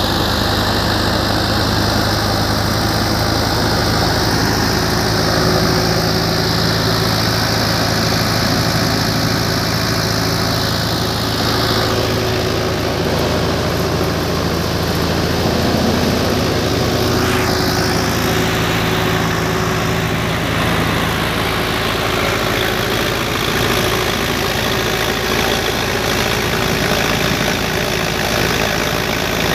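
Ace 6565 V2 tractor's diesel engine running steadily under load, driving a threshing machine whose drum whirs as straw is fed in and chaff blows out. A loud, continuous machine noise with a steady low hum.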